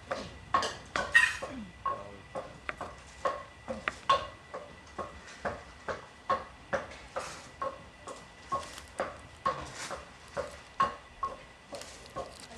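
Kitchen knife slicing pork sausage on a wooden cutting board: a steady run of knocks, about two a second, as the blade goes through and strikes the board.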